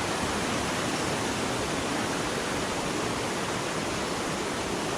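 A river's water rushing in a steady, unbroken wash of noise.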